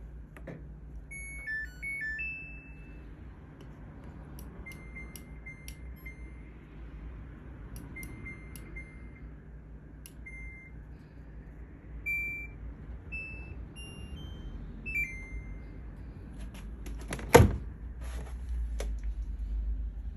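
Control panel of a Samsung Grande 17 kg AddWash front-loading washing machine beeping: a few quick beeps stepping in pitch near the start, then single short beeps at intervals as its buttons are pressed. A sharp click about 17 seconds in is the loudest sound.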